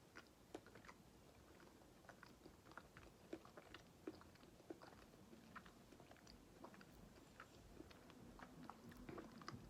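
Faint mouth sounds of a person biting into and chewing a cookie: small irregular wet clicks and smacks.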